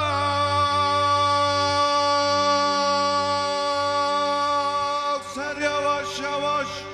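Male singer holding one long sustained note in a free-rhythm Turkish uzun hava, then breaking into quick ornamented melismatic turns about five seconds in. A steady low held note accompanies the voice underneath.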